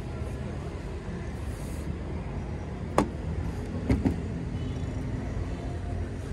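Steady low rumble of vehicles, with a sharp knock about three seconds in and a heavier double thud about a second later.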